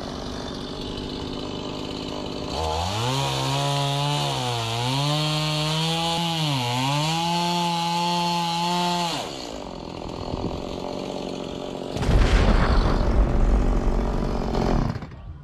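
Small Stihl MiniBoss two-stroke chainsaw idling, then revved and cutting through a tree trunk for about six seconds, its pitch dipping twice as the chain bogs down in the wood, before dropping back to idle. Near the end comes a loud, rough rumbling noise lasting about three seconds.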